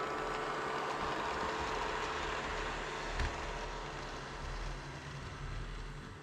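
Budget robot vacuum cleaner running: a steady motor whir and brush hum with a faint constant whine.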